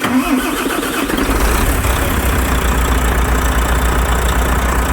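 Volvo FH13 truck's 13-litre inline-six diesel idling steadily after a valve adjustment, without the metallic knock and grinding it came in with.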